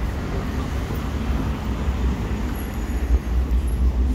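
Street traffic: a low, steady rumble of passing vehicles, growing a little louder near the end.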